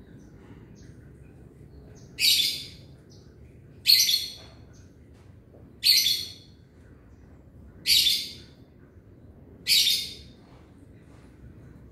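A bird repeating a short, high call five times, about two seconds apart.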